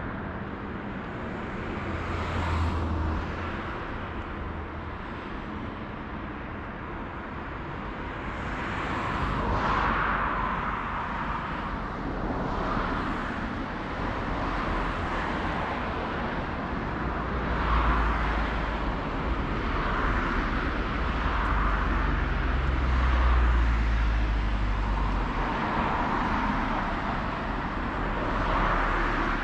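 Outdoor ambience with road traffic: vehicles passing one after another as swelling whooshes, over a low rumble that grows stronger past the middle.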